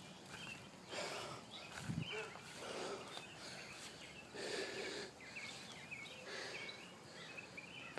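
Faint short bird calls, a series of quick hooked chirps repeated through the middle and later part, with soft rustling noise between them.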